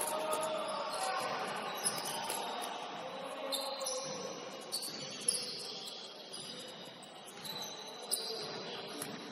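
Basketball gym ambience: high-pitched squeaks of shoes on the court over a low murmur, with a few sharp knocks.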